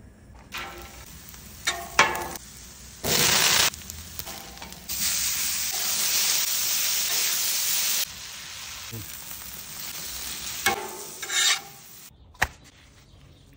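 Food sizzling on a hot steel flat-top griddle, with metal spatulas scraping and clacking on the plate as the food is turned. A short loud burst of sizzle comes about three seconds in, and a longer steady sizzle runs from about five to eight seconds in.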